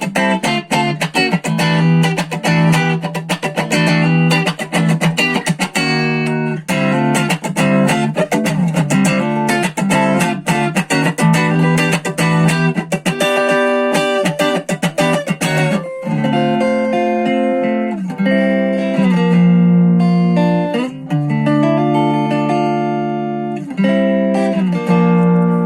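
SX Vintage Series Telecaster-style electric guitar played through a Marshall MG10 practice amp. Quick picked notes and strums for about the first two thirds give way to slower, ringing single notes and chords.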